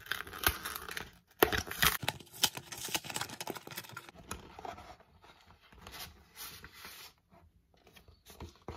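A cardboard mailer being torn open by hand: ripping cardboard and paper with crinkling, loudest and densest in the first half. It is followed by sparser rustling and handling of the contents.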